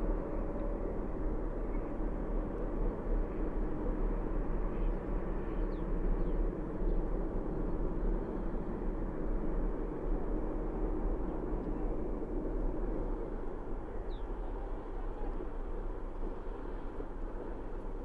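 Steady low rumbling background noise, with a faint hum at the start and a few short faint high chirps.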